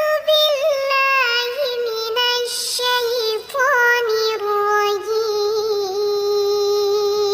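A single high, singing voice-like sound, held in long wavering notes that slowly drift down in pitch.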